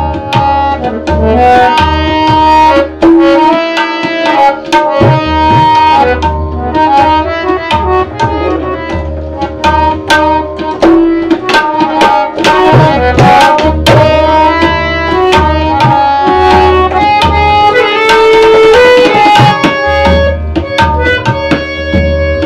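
A tabla played by hand in a fast, continuous rhythm. Sharp, ringing strokes on the small right-hand drum (dayan) mix with deep booming strokes on the large left-hand bass drum (bayan).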